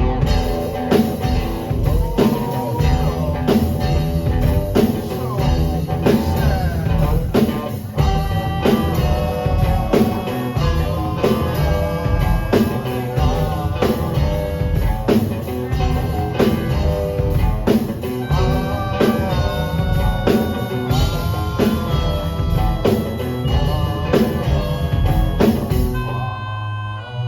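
Live rock band with drum kit and electric guitar playing a steady-beat instrumental passage. The drums stop about a second before the end, leaving a chord ringing.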